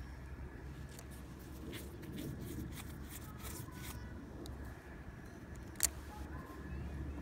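Scattered small clicks and handling noises over a steady low rumble, with one sharp click a little before six seconds in.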